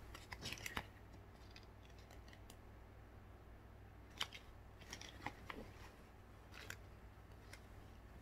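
Faint clicks and crackles of a cardboard hang tag and the straps of a fabric baby carrier being handled. There is a short cluster about half a second in, then a few scattered sharp clicks over a quiet room.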